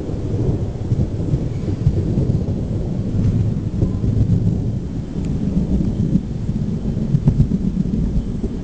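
Thunder rumbling continuously in a thunderstorm, a deep rolling rumble that swells and ebbs without a sharp crack, over a faint hiss of rain.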